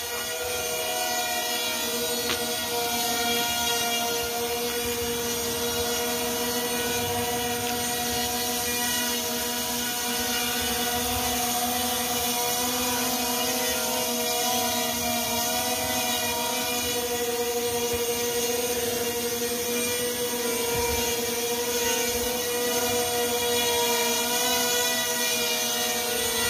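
JJRC M02 RC jet's twin electric motors and propellers whining steadily as it hangs nose-up in a hover, the pitch wavering slightly with the throttle.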